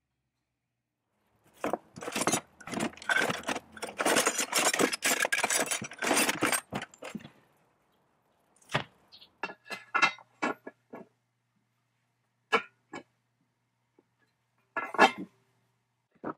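Old metal hand tools clinking and clattering as they are rummaged through in a wooden box: a dense run of clatter for several seconds, then single clinks and knocks spaced out.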